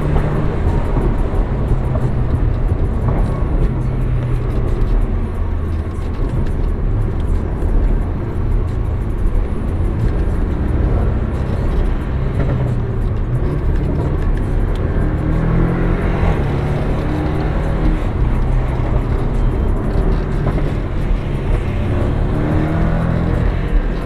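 Porsche 718 Cayman engine heard from inside the cabin while driving, its pitch rising and falling with throttle and gear changes, over a steady road and tyre rumble.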